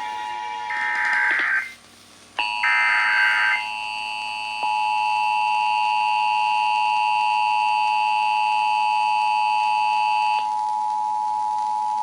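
Emergency Alert System tones: short raspy bursts of the digital SAME header data, then a steady two-tone attention signal that starts about two and a half seconds in. The tones announce a statewide required monthly test.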